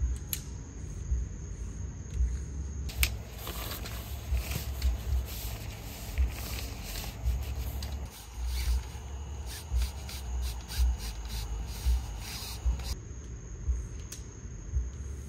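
A rough rubbing, scraping noise from about three seconds in until near the end, over a steady high insect trill and a low rumble.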